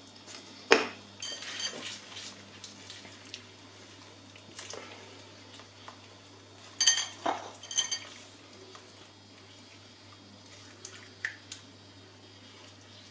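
Kitchen utensils clinking and tapping against crockery and a frying pan while eggs are salted. There is a sharp clink about a second in, a run of lighter taps, and a louder group of ringing clinks around seven to eight seconds in, then a few faint taps near the end.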